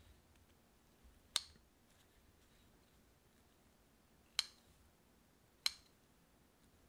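Scissors snipping into soft bread dough three times, short sharp snips cutting a cross into the top of a dough ball.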